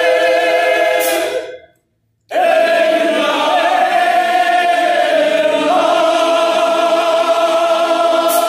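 Unaccompanied voices singing long held notes. They break off completely under two seconds in, then come back on a second long, slightly wavering note that lasts almost to the end.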